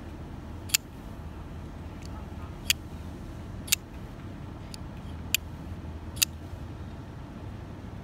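Kubey KU203 Chubby liner-lock folding knife on a ceramic ball-bearing pivot being flipped open and snapped closed, giving six sharp metallic clicks at irregular intervals, one fainter than the rest. A steady low rumble runs underneath.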